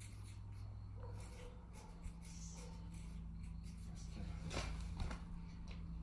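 Faint scratching of a pencil writing on a concrete column, over a steady low hum, with a few soft knocks near the end.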